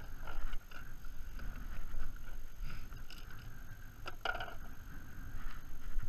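Wind rumbling on the microphone, mixed with small knocks and rustles of painting gear being handled, and a brief sharper sound about four seconds in.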